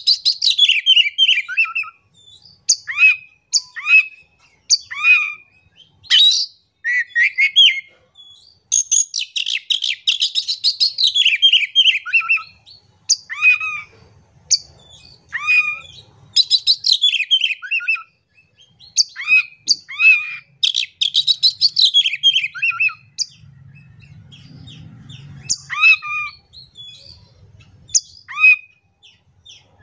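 Oriental magpie-robin singing in full voice. Several bursts of fast, tumbling chatter fall in pitch, with short sharp whistled notes between them.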